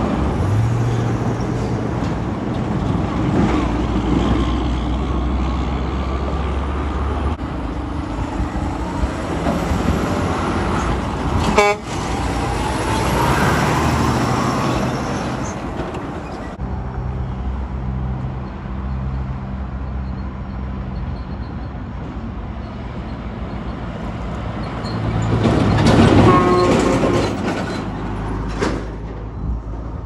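Diesel tractor-trailer dump trucks driving past, engines running and tyres on the road. About 25 s in there is a louder passage of a second or two with a pitched sound over the engine.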